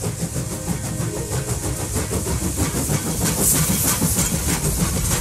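Steam-hauled passenger train running on the rails: a steady rumble with a fast clatter of wheels, and a short burst of hiss about three and a half seconds in.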